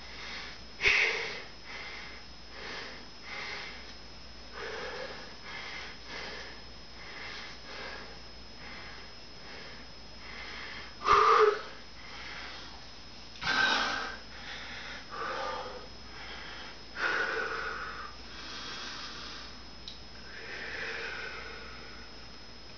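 A man breathing hard as he catches his breath after a set of push-ups, a noisy breath about every second, with a few louder breaths about halfway through.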